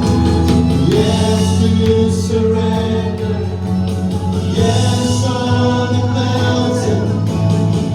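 Live worship band playing a slow Christian worship song: long held chords with cymbal washes and singing voices.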